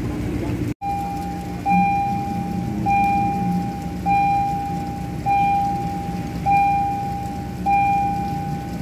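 Aerial tramway terminal's warning signal: a steady high electronic tone that restarts about every 1.2 seconds, over the low hum of the tram machinery, while the tram cabin comes in on its cables.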